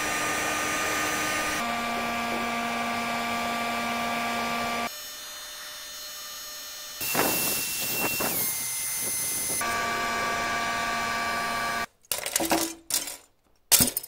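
Electric heat gun running: a steady blowing hiss with a fan motor whine, in several short takes where the whine jumps in pitch at each cut, as it blows hot air onto expanded polystyrene foam to melt it down. It stops about twelve seconds in, and a few light clinks and knocks follow.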